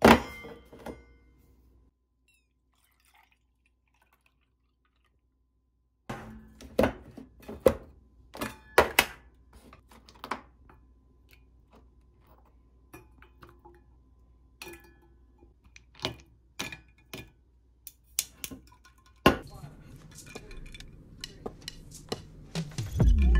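A plastic food container's lid clacks, then frozen coffee ice cubes clink and knock one after another into a stainless-steel tumbler of coffee milk. Near the end this gives way to a steady low room hum with a few light taps.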